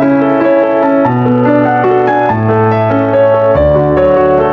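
Piano music: slow, held notes over a low bass note that changes about every second and a quarter.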